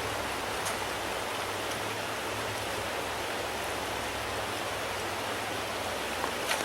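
Steady rush of flowing stream water, with a few faint clicks.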